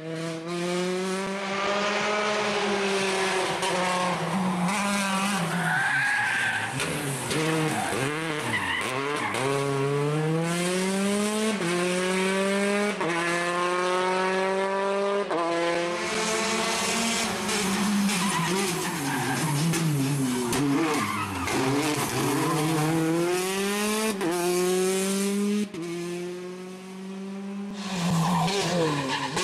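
Peugeot 208 T16 R5 rally car's turbocharged 1.6-litre four-cylinder engine driven hard, its pitch climbing and then dropping sharply at each quick upshift, again and again, with slower falls as it slows for corners.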